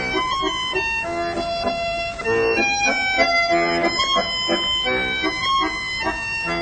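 Accordion playing a tune, with regular pulsing chords under the melody.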